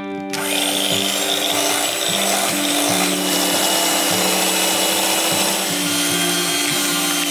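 Electric hand mixer running steadily, its twin metal beaters creaming softened butter in a glass bowl as beaten egg is added.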